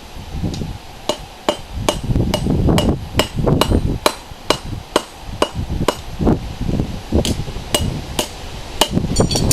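Hand hammer striking a hot railroad spike on an anvil in steady forging blows, about two a second, each with a short metallic ring, with a quick flurry of lighter taps near the end.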